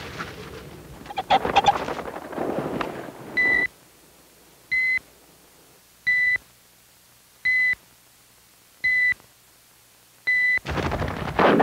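Six short electronic beeps, evenly spaced about one every 1.4 seconds, each a single steady high tone: a countdown signal marking the seconds to decide whether to shoot. Before the beeps come a few seconds of rustling and flushing noise, and a loud burst of noise cuts in right at the end.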